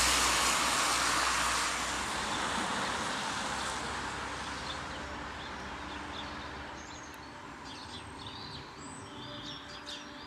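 A car passing on a wet road, its tyre hiss fading away over the first few seconds. Birds chirp in the second half.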